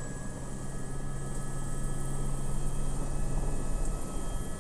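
Airbus AS350 B3 Esquilo helicopter lifting off: the turboshaft engine and rotor grow louder as takeoff power comes in, with a high whine rising slightly in pitch.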